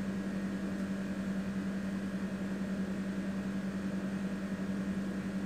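Steady low electrical hum with a faint even hiss beneath it, unchanging throughout.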